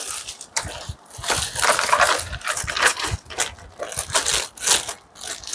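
Packaging being handled and crinkled while accessories are unpacked: an irregular run of rustling and crackling with small knocks.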